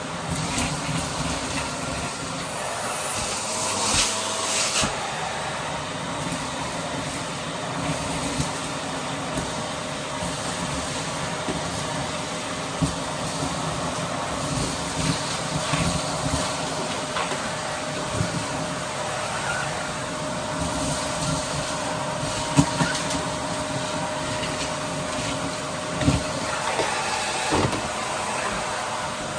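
Commercial vacuum cleaner running steadily, a constant hum with a whine, with a few short clicks and knocks as it is worked over the floor.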